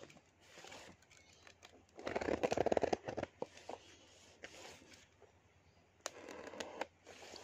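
Packing tape on a cardboard parcel being cut with a box cutter and pulled at: scratching, rustling and crackling tape. The loudest stretch is a rapid crackling rip about two seconds in, and there is another about six seconds in.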